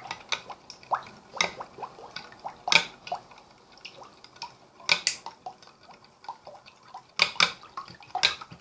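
Spoon stirring a liquid mix of beaten eggs and milk in a bowl, clinking irregularly against the bowl with wet sloshing.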